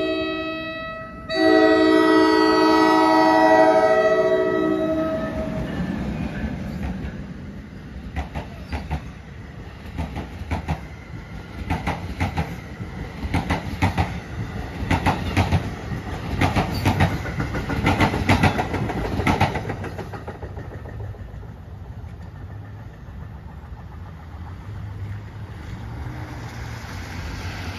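NJ Transit ALP-46A electric locomotive's horn sounding a chord. It breaks briefly about a second in, blows again, and slides down in pitch as the locomotive passes. Then the train's steel wheels knock rhythmically over the rail joints and crossing in quick groups, loudest a few seconds past the middle, before dying away to a low rumble.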